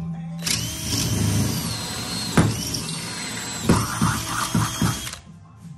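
Cordless drill boring through 5/8-inch plywood for carriage-bolt holes: the motor whines under load, with a sharp crack about halfway and a run of knocks a little later. It starts about half a second in and stops about a second before the end.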